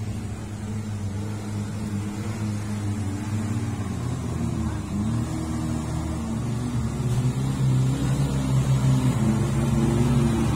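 Suzuki Jimny 4x4's engine running at low revs as it crawls along a dirt track, its pitch wavering a little. It grows louder toward the end as the jeep nears.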